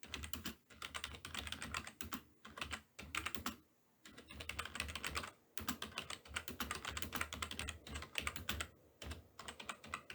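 Typing on a computer keyboard: rapid runs of key clicks in bursts of a second or two, broken by short pauses, the longest about four seconds in.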